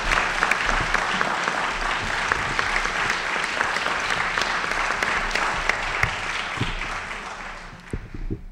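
Audience applauding, a dense patter of claps that dies away near the end.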